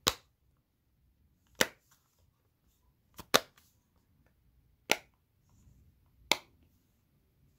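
Silicone bubbles of a Dimpl Digits popper fidget toy being pressed, giving sharp single pops about every second and a half, with two in quick succession near the middle.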